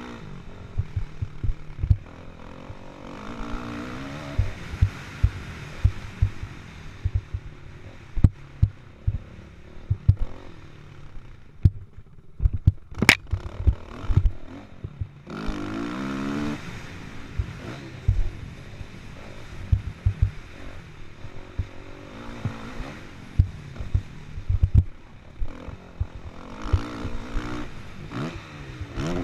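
Onboard sound of a Kawasaki KX450F four-stroke single-cylinder motocross engine racing: revving up and down through the throttle in repeated surges, with frequent short low thumps throughout and one sharp click about halfway.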